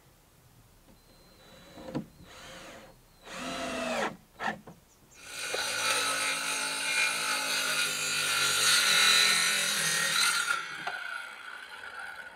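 A power tool working wood: a few short bursts, then one steady run of about five seconds whose pitch sags slightly under load before it stops.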